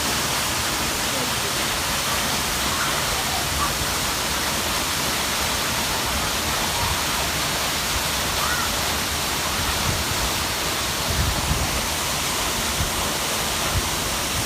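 Waterfall: a steady, dense rush of falling water. A few heavier low rumbles come about two-thirds of the way through.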